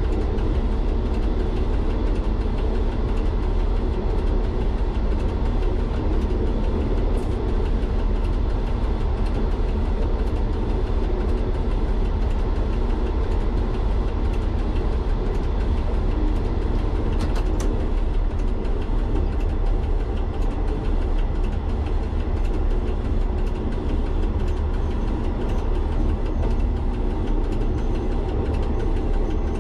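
An MVTV-2 overhead-line maintenance railcar's diesel engine running steadily, with train running noise. A brief click comes about seven seconds in and another about seventeen seconds in.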